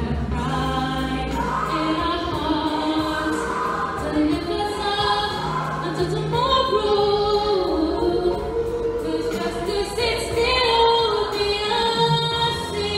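A woman singing a slow song into a microphone through the auditorium's sound system, holding and bending long notes over low sustained accompaniment.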